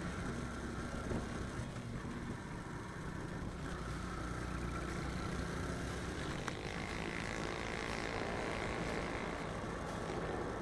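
Motorcycle engine running steadily at cruising speed, heard from the bike itself with road and wind noise; about two-thirds of the way in a tick is followed by a higher steady whine as the engine note changes into a curve.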